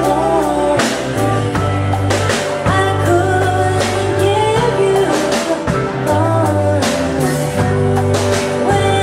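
A song with singing over a steady beat, with held bass notes and drums.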